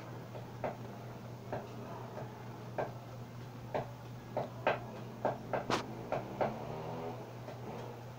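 About a dozen light, irregular clicks and taps, most of them bunched in the middle, over a steady low hum.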